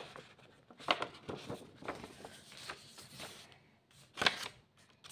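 Paper rustling from handmade journal pages being handled and turned: a few brief scuffs and crinkles, with a louder, sharp rustle about four seconds in as a page is turned over.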